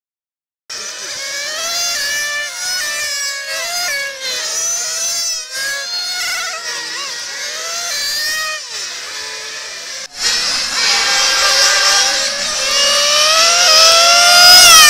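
Small high-revving engines of radio-controlled model racing cars, several at once, their whines rising and falling in overlapping sweeps as they accelerate and brake around the track. The sound breaks off briefly at the start and comes back louder and busier about ten seconds in.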